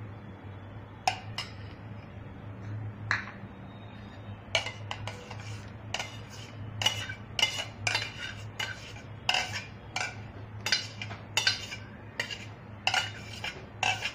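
Metal spoons clinking and scraping against the bowl's rim and the small plastic kulfi moulds as ice-cream mixture is spooned in. A few scattered clinks come first, then a quick run of them from about a third of the way in, over a low steady hum.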